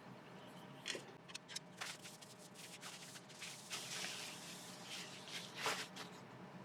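Faint handling sounds: scattered light clicks and a soft rustle in the middle, with one sharper knock near the end, over a low steady hum.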